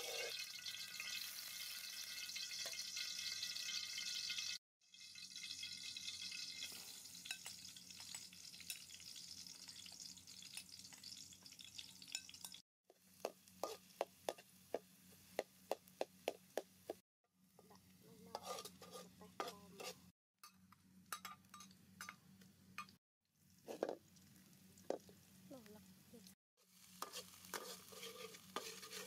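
Hot oil sizzling in a metal wok as minced garlic fries, loudest in the first few seconds. A metal spatula scrapes and taps against the wok in a run of quick strokes, about three a second, partway through.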